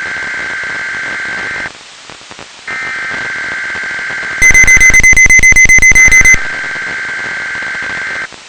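Weather Radio Canada weekly test's SAME digital header: steady bursts of data tones, the first stopping about two seconds in and the next starting about a second later. Midway through the second burst, a much louder rapid electronic beeping, about seven beeps a second, sounds over it for about two seconds.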